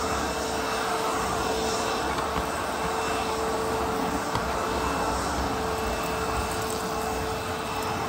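ProTeam Super CoachVac backpack vacuum running steadily, a constant motor whine over a rush of suction, as its floor tool is pushed over carpet.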